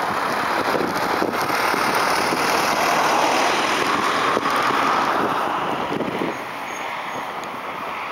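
Road traffic passing, a car and a truck, mixed with wind on the microphone; the rushing noise swells and then drops away about six seconds in.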